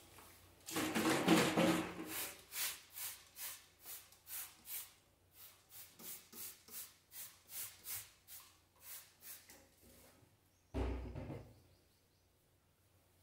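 Hand scrubbing in rhythmic back-and-forth strokes, about three a second, dying away, then a single dull thump.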